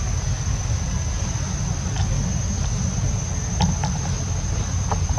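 Forest ambience: a constant high-pitched insect drone over a steady low rumble, with a few faint ticks.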